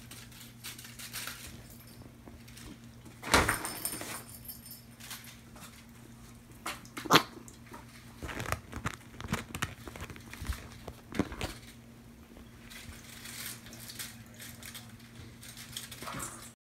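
Kittens playing: scattered light rustles, scuffles and small knocks, the loudest a cluster about three seconds in and a sharp knock about seven seconds in, over a steady low hum.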